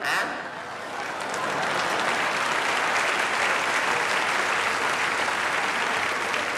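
Live audience applauding, swelling over the first couple of seconds and then holding steady.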